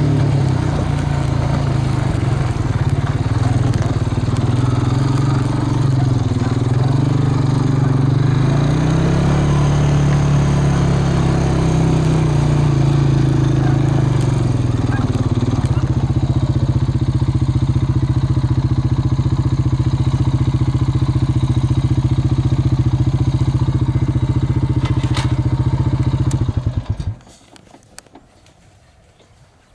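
A vehicle engine running, its pitch shifting a little at first and then holding steady, before it is shut off near the end.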